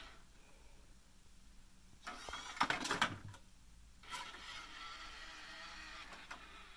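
A small mobile robot's drive motors whine while it drives, and fall quiet as it stops. About two seconds in comes a short burst of motor whirring with clicks and clatter from its block-handling mechanism. The drive motors start whining again about four seconds in.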